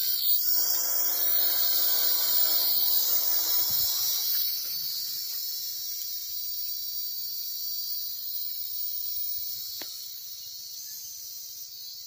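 Small toy quadcopter's motors and propellers whining as it lifts off carrying a small bundle of yarn, a pitched buzz that is strongest for the first few seconds and then fades steadily as the drone climbs away.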